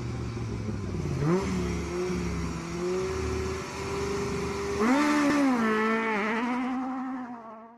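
Rally car engine accelerating: the pitch climbs about a second in and holds, then revs up sharply and drops back around five seconds in, before fading out near the end.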